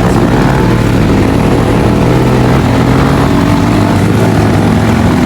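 Dirt bike engine running steadily under way, its pitch drifting a little up and down.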